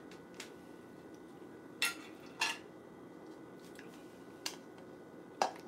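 A glass pickle jar and a drinking glass being handled, with the jar's lid worked off: a handful of separate sharp clicks and clinks, the loudest two close together about two seconds in.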